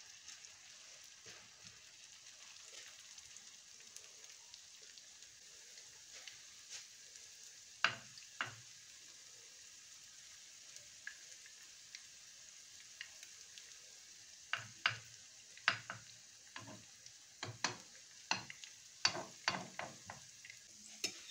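Potato pancakes frying in hot vegetable oil in a frying pan, with a steady sizzle throughout. A metal fork and spoon tap and click against the pan, twice about eight seconds in and then often over the last seven seconds.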